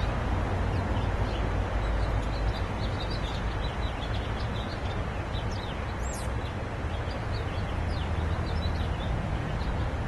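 Small songbirds chirping in many quick, short, high calls, with one sharper call sweeping down about six seconds in, over a steady low outdoor rumble.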